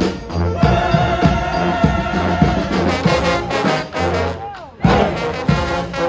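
Brass street band playing, with sousaphones on a low bass line under trombones, trumpets and saxophones, over a steady beat. The music drops out briefly just before five seconds in, then the band comes back in together.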